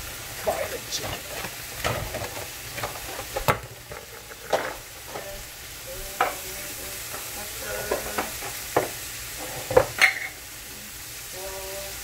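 Pieces of chicken breast sizzling in oil in a hot frying pan, with a steady hiss broken by sharp clicks and taps as the pieces are placed and moved in the pan.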